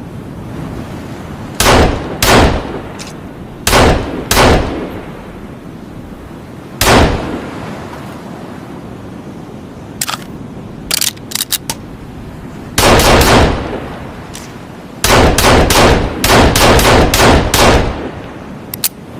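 Heckler & Koch USP Compact pistol firing, each shot followed by a short ringing echo. Five separate shots come first, then a few lighter clicks. A quick string of shots follows, and then a longer run of rapid fire near the end.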